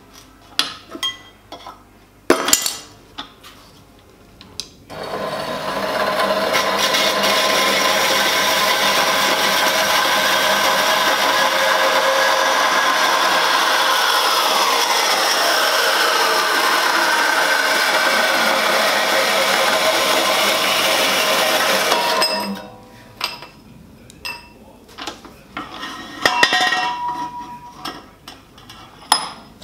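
Small portable metal-cutting band saw running and cutting through a stainless steel pipe for about seventeen seconds, starting about five seconds in and stopping suddenly; one pitch in its sound falls partway through the cut. The blade is one the owner calls too coarse, chipping the cut edges. Before and after the cut come clinks and knocks of the pipe being handled in the saw's vise.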